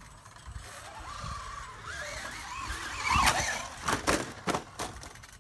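Traxxas Slash RC truck's electric motor whining, its pitch rising and falling as it is throttled on and off, then about five loud thumps and knocks over the last couple of seconds as the truck bangs about on the trampoline.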